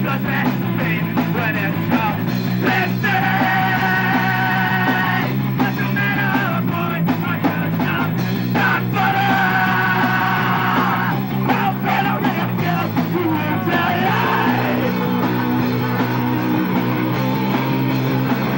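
Live punk rock band playing: distorted electric guitars, bass guitar and a drum kit, with a singer shouting the vocals. There are held, ringing notes a few seconds in and again near the middle.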